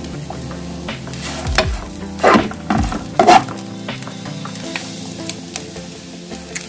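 A spoon scooping and pressing fried rice into a bowl, with several scraping strokes against the bowl and pan, the loudest about two to three and a half seconds in. Background music plays underneath.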